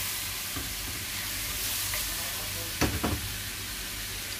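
Shrimp and calamari sizzling in hot oil in a frying pan as they are stirred. Two sharp knocks come close together about three seconds in.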